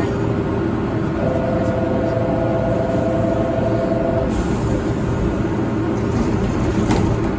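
A tram standing at a platform, humming steadily, while a steady two-note buzzer sounds for about three seconds, starting about a second in. A few sharp clicks come near the end.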